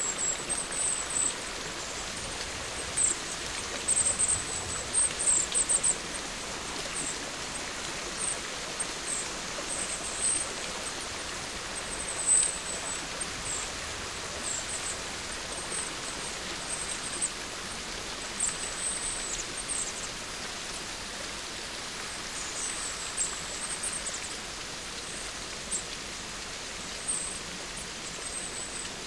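Steady rain-like hiss with scattered short, high-pitched chirps, most frequent in the first six seconds.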